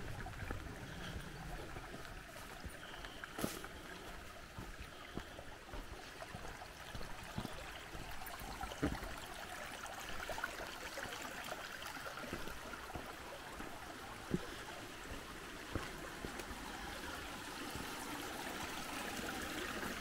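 A small mountain creek running steadily over rocks, with scattered footfalls on dry leaves.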